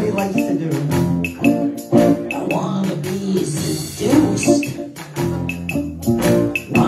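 Live music: an acoustic guitar being played in a song, with other instruments behind it.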